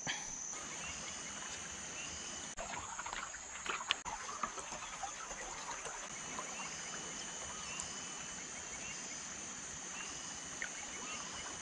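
Steady, high-pitched drone of insects, with a few faint short chirps over it.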